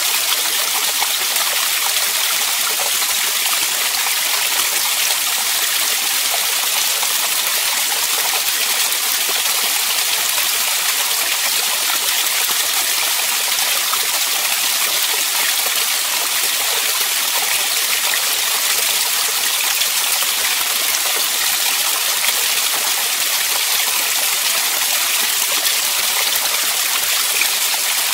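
Small waterfall in a mountain brook pouring over a mossy rock ledge and splashing into a shallow rocky pool: a steady, hissing rush of falling water.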